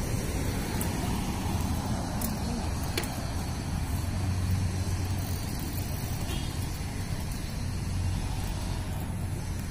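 Road traffic on a city street: a steady rumble of passing vehicles that swells about halfway through.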